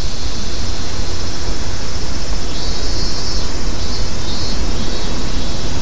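Steady, loud rush of moving air buffeting the microphone, with a deep low rumble underneath.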